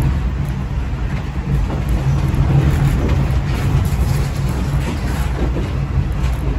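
Kominato Railway diesel railcar under way: a steady low engine rumble with running and rail noise over it.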